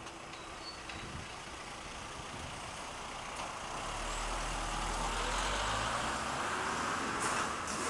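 A motor vehicle passing on the street: engine and tyre noise swelling over the first few seconds, loudest near the end, then dropping away.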